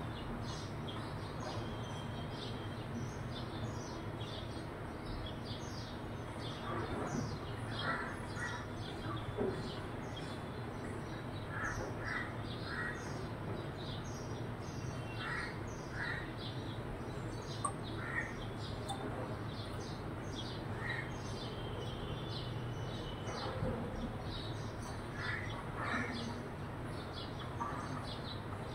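House sparrows chirping: many short, quick chirps that run on throughout, with now and then a few lower calls in groups of two or three from other birds.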